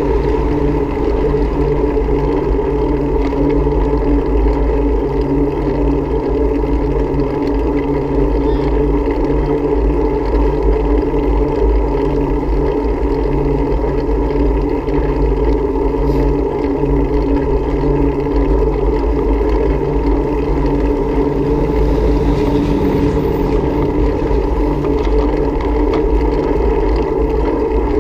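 Steady riding noise from a camera moving along a paved bike lane: wind buffeting the microphone, with a constant low hum underneath.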